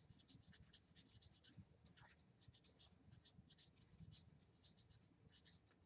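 Faint scratching of a marker pen writing on a white board: a quick run of short strokes in bursts, with brief pauses between words.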